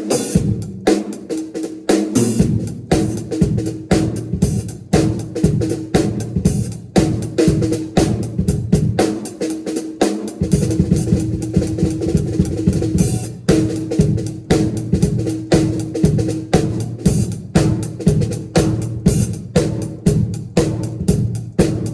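Drum kit played in a busy groove, with rapid snare hits and bass drum kicks. A sustained low pitched note runs underneath, dropping out briefly twice.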